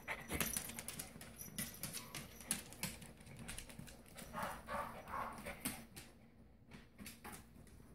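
Small dogs' claws clicking and pattering on a hardwood floor as they scamper and jump about, in quick irregular clicks.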